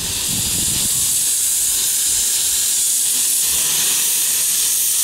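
Narrow-gauge Decauville steam locomotive standing with steam blowing out low at the front by its cylinders: a loud, steady hiss.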